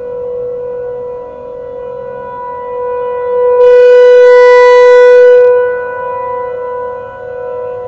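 Several outdoor warning sirens sound a steady alert tone for a monthly test. The nearest rotating siren's horn sweeps past, so the tone swells much louder and brighter for about two seconds midway, then falls back.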